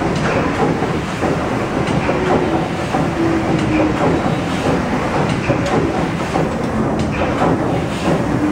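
Paddle steamer Waverley's 1946 Rankin & Blackmore triple-expansion steam engine running under way, its connecting rods, crossheads and valve gear clanking and knocking in a steady rhythm.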